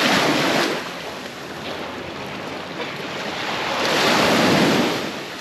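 Small waves washing up on a sandy beach: a steady surf hiss that swells twice, once right at the start and again about four seconds in.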